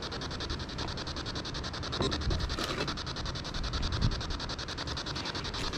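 Spirit box sweeping through radio stations and played through an external speaker: a steady hiss of static chopped into rapid, even pulses, with no clear voice fragments.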